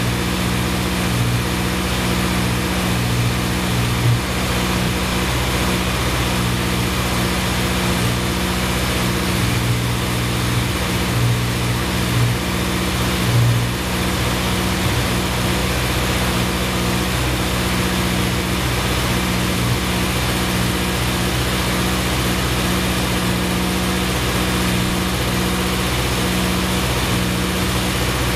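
Honda CB 750 inline-four engine idling steadily, briefly louder twice.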